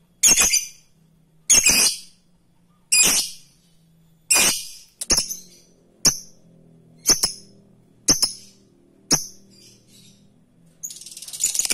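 Lovebird giving a string of single sharp, shrill calls, about one a second, nine in all. Near the end it breaks into the rapid chattering trill that keepers call 'ngekek'.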